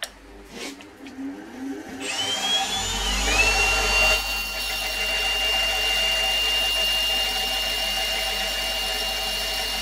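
Cordless drill whirring briefly, then a bench grinder starting about two seconds in, its whine rising and settling to a steady high pitch over a low motor hum. A transfer-punch blank spun in the drill is ground to a point against the wheel.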